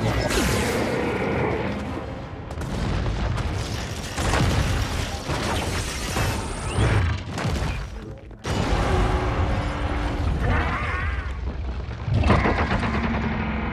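Movie battle sound effects of a giant robot fighting a giant monster: a dense mix of heavy booming impacts and machinery sounds. The sound cuts out briefly a little past halfway, then comes back in, with a louder hit near the end.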